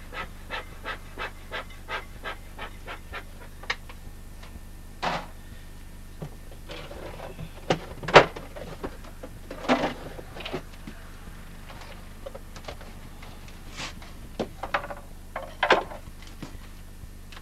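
Bee smoker bellows puffing smoke into the hive in quick, regular strokes, about three a second, stopping after a few seconds. Then scattered wooden knocks and scrapes as the back of the AŽ hive is opened, the sharpest about halfway through.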